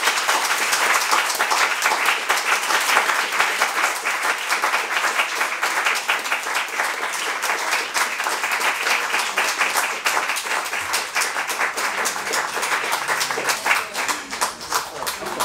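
A small audience applauding, a steady round of many hands clapping that starts to thin out near the end.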